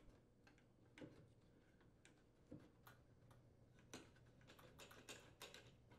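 Faint, scattered clicks and small metal taps as a wrench and hands work the nut and broil orifice tube fitting at the back of a gas range.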